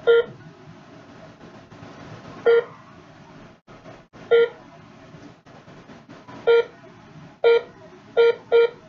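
Short electronic beeps from a ZKTeco fingerprint attendance terminal during fingerprint enrollment and menu use, seven in all at irregular gaps, coming quicker near the end.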